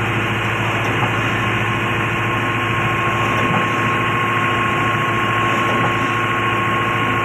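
Old stationary diesel engine running steadily while it drives a stone flour mill, with a steady high tone over the engine noise.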